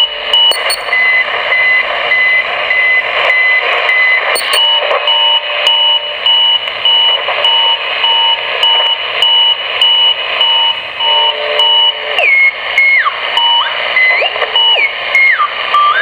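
Strange repeating electronic beeping received on a CB radio on 27.395 MHz (channel 39), over a bed of radio static: evenly spaced beeps of two high tones sounding together, the upper tone dropping to a lower pitch for a few seconds near the start. In the last few seconds the beep tones slide and step down and up in pitch. It is an unidentified wide-ish AM signal that could be a channel marker, deliberate jamming or a practical joke.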